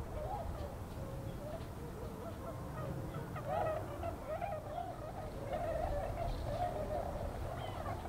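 A flock of swans calling: many overlapping honking calls, growing busier about halfway through.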